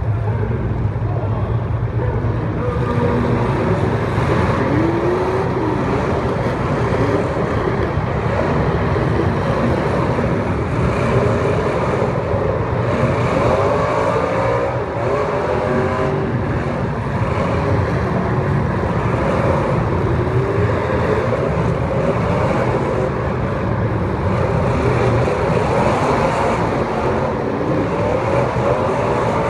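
Several small race-car engines running together during a race, their pitches rising and falling with throttle as the cars go round the track, over a steady drone.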